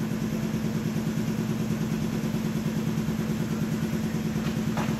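A machine motor running steadily with a low hum and a fast, even throb, and a faint click near the end.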